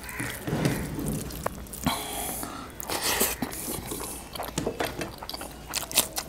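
A hand mixing gravy-soaked noodles and mutton pieces on a steel plate, making a run of short wet clicks and smacks. Eating sounds follow near the end as a mouthful is taken.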